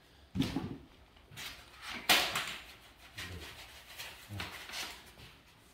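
Handling noise from a small folding electric bike being assembled by hand: a few knocks and rattles of its parts, with one sharp clack about two seconds in the loudest.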